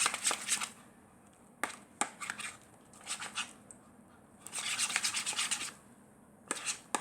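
A utensil scraping around a bowl in quick strokes as a glue-based slime is stirred and begins to clump. The scraping comes in several bursts of about half a second to a second, with short pauses between.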